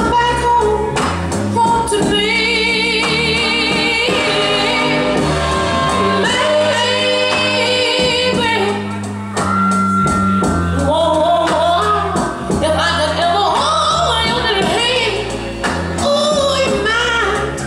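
A song playing loudly: a solo voice singing held notes with heavy vibrato over instrumental backing.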